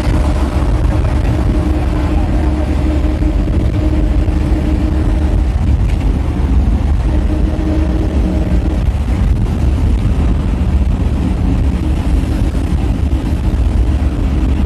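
Steady road and wind noise from a vehicle moving at highway speed, heard from inside, with a heavy low rumble. An engine hum runs under it for much of the time.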